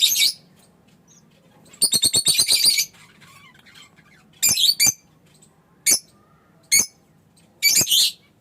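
Fischer's lovebird giving sharp, shrill chirps in short bursts with pauses between them. About two seconds in comes a fast run of chattering chirps lasting about a second. Single chirps follow near six and seven seconds, then another quick burst near the end.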